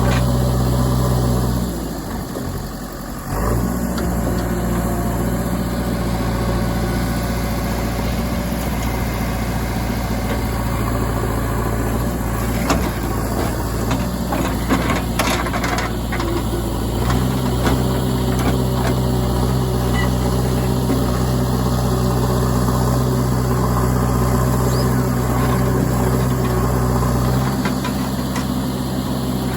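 Diesel engines of a JCB 3DX backhoe loader and an Ashok Leyland truck running steadily. The engine note dips about two seconds in and grows heavier past the middle, and scattered knocks and clatter come in the middle.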